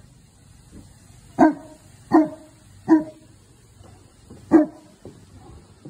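Newfoundland dog barking four times: three single barks in quick succession, then one more after a short pause. This is alert barking at a delivery driver coming to the property.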